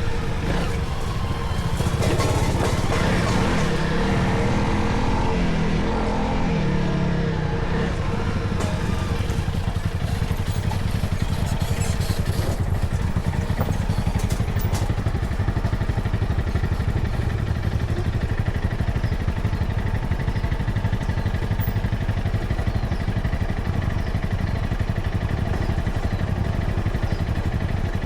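A vehicle's engine running steadily while on the move, with road rumble.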